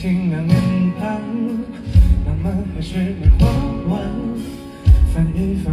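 Live pop band music with a wavering singing voice over it and heavy low drum beats roughly every second and a half.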